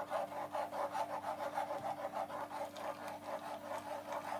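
Metal spoon scraping thick juice pulp around a fine metal mesh strainer to push the juice through, in an even rhythm of about four to five strokes a second.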